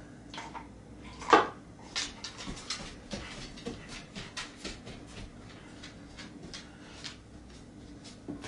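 A dog moving about excitedly: irregular light clicks and taps, a few a second, with one louder short sound about a second in.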